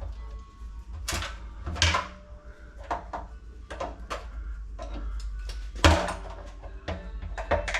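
Irregular clicks, knocks and clatter of hand tools and small metal parts being handled, with the sharpest knocks about two seconds in and about six seconds in.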